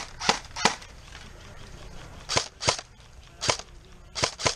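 Airsoft gun firing single shots: about seven sharp cracks, mostly in quick pairs with pauses of a second or so between them.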